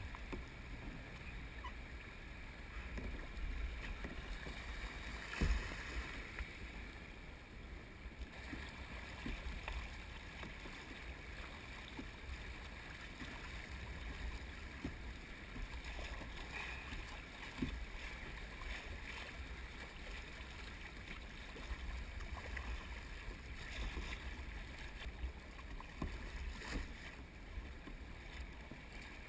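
River water rushing and splashing around a plastic kayak as it runs shallow riffles, with scattered small knocks and splashes from paddling and a sharper knock about five and a half seconds in.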